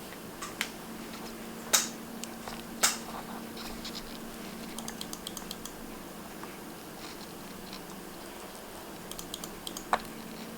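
Small metal clicks and taps of watchmaker's tools, screwdriver and tweezers, on a watch movement as the dial screws are taken out. There are a few sharper clicks, with faint light ticking between them, over a faint steady hum.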